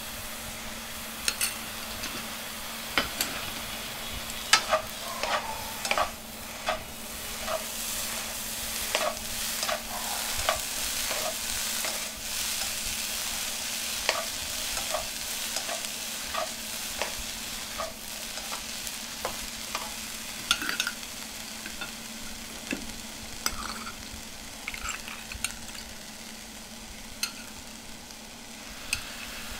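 Shredded chicken being stir-fried dry into meat floss in a nonstick wok: a steady sizzling hiss with frequent sharp taps and scrapes of a wooden spatula against the pan. The taps come thickest through the first two-thirds and thin out near the end.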